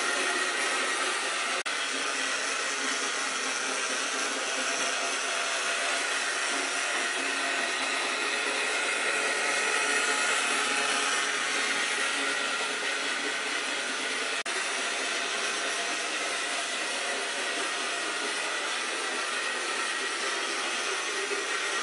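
Rivarossi HO-scale Norfolk & Western Y6b 2-8-8-2 model locomotive running on its track: the electric motor and gear train give a steady whirring, with the wheels rolling on the rails. It grows slightly louder about halfway through.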